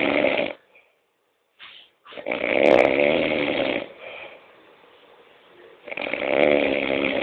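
A man snoring heavily: three long, loud snores, the first ending about half a second in, the second from about 2 to 4 seconds in, the third starting about 6 seconds in, with quiet pauses between.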